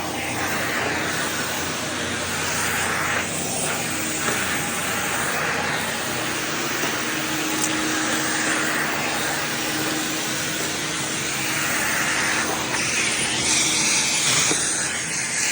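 MD model SV central vacuum running, a steady rush of suction air through the hose.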